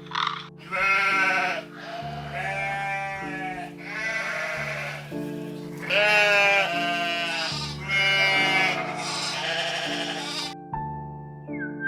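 An animal calling about six times, each call drawn out for around a second with a wavering pitch, over background music with steady held chords. The calls and chords stop shortly before the end, when a different tune begins.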